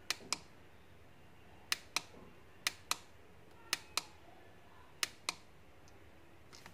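Small plastic push button on a star night light projector's base clicking as it is pressed and released five times, each press a quick double click. Each press steps the projector to its next lighting mode.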